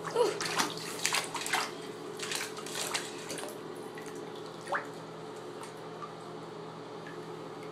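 Bathwater in a bathtub splashing and dripping: a quick run of small splashes in the first three seconds or so, then only sparse drips over a steady low hum. One short rising squeak comes about five seconds in.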